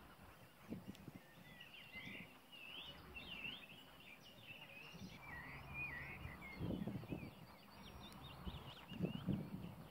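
Small birds chirping and singing over outdoor ambience, with a few low muffled thumps about two-thirds of the way through and again near the end.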